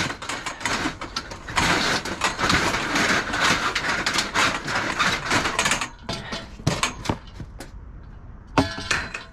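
Scrap metal being handled and shifted: dense clattering and scraping, thinning out to a few separate knocks after about six seconds, with a ringing metallic clank near the end.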